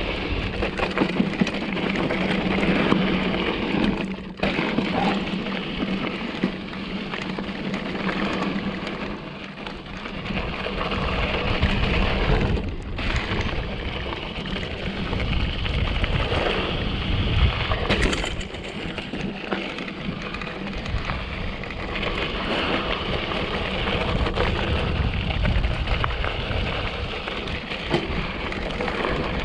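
A 2014 Giant Trance 3 full-suspension mountain bike ridden along a dirt trail: a steady rush of tyres rolling over dirt and rock, with frequent rattles and knocks from the bike.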